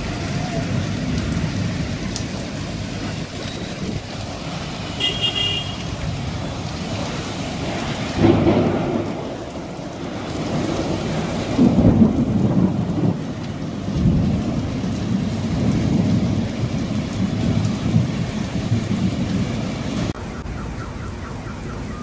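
Heavy rain pouring down on a street, with deep rumbles of thunder swelling several times.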